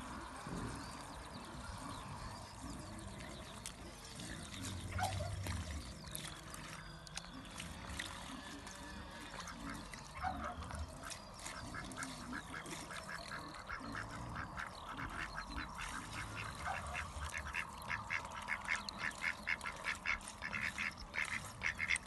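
African goose dabbling and splashing its bill in a bucket of water: a fast run of wet slaps that grows busier and louder over the last several seconds, with a few short calls in between.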